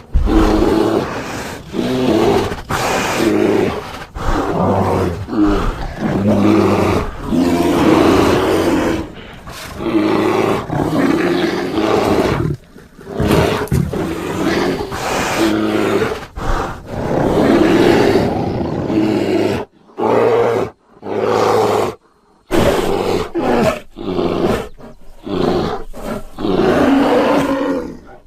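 Bear growls and roars one after another, from a mixed sound-effect voice made of sloth bear, grizzly, black bear and cave bear recordings. A few short silent breaks come a little past the middle.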